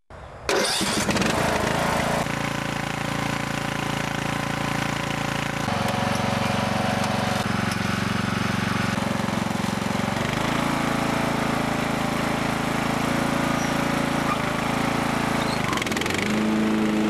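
Partner P145107H lawn tractor's engine running, cutting in abruptly right at the start. Its note shifts to a new steady pitch several times, at about two, six, ten and sixteen seconds in.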